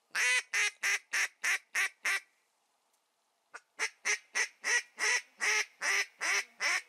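Duck call blown by a hunter: a run of about seven quacks, then after a short pause about ten more quacks.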